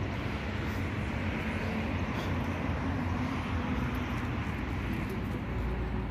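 Steady running noise of a small open-sided passenger cart moving along a bridge deck, heard from inside the cart: a low motor hum under an even rush of tyre and wind noise.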